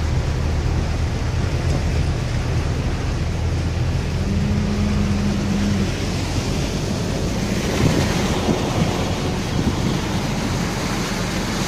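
A vehicle driving through deep floodwater, heard from inside the cab: a steady engine hum under the rushing splash of water along the body, the water noise growing fuller in the second half. About four seconds in, a steady low tone sounds for about a second and a half.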